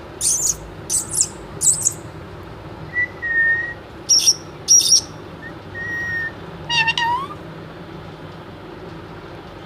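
Pet talking parrot screeching and whistling: three short harsh screeches in quick succession, a short steady whistle, two more screeches, another whistle, then a brief squawk.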